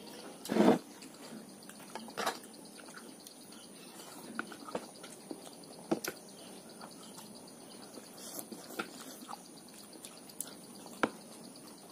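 Close-up eating sounds of two people: wet chewing and slurping and scattered clicks of spoons against bowls. The loudest is a short burst about half a second in.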